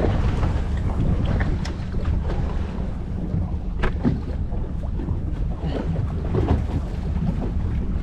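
A boat at sea: a steady low rumble with wind on the microphone, and a few sharp knocks, the loudest about four seconds in.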